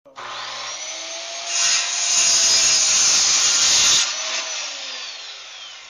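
Handheld electric circular saw spinning up with a rising whine, then cutting through a wooden board for about two and a half seconds. The cut ends sharply about four seconds in, and the motor's whine falls away as the blade winds down.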